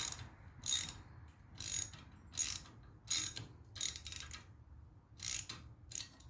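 A hand ratchet wrench cranked in short, regular strokes, about one stroke a second, its pawl clicking on each return swing. It is tightening a nylon lock nut on the press's foot-pedal linkage.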